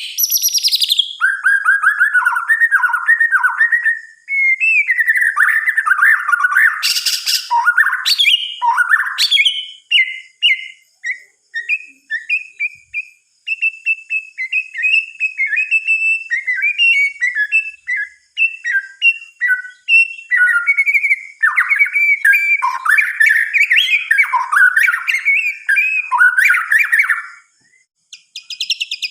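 White-rumped shama (murai batu) singing a long, varied song of whistled phrases and chatter, with a run of short clipped notes in the middle and a brief pause near the end.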